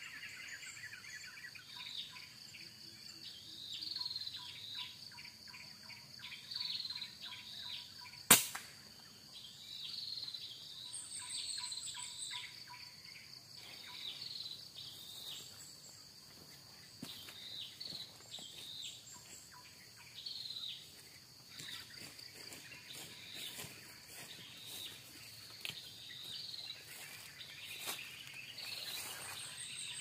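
A single sharp air-rifle shot about eight seconds in, the loudest event, over a steady high insect drone and small birds chirping repeatedly.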